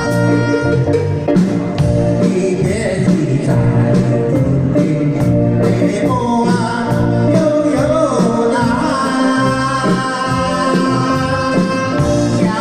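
A Taiwanese Hokkien song: a singer's voice over a backing band track with a steady beat. The voice comes in more clearly about halfway through.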